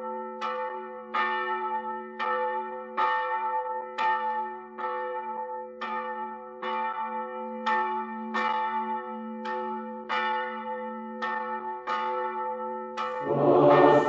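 Church bells ringing, struck in a steady rhythm of about one and a half strokes a second, each stroke leaving a long hum. Near the end choral singing comes in over them.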